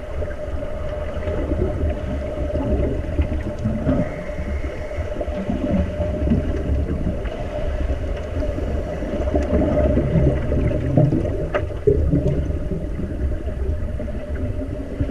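Muffled underwater sound in a pool, heard through the camera: a low rumble with irregular churning of water and bubbles from finned swimmers kicking, over a steady mid-pitched hum. There is a single sharp click about eleven and a half seconds in.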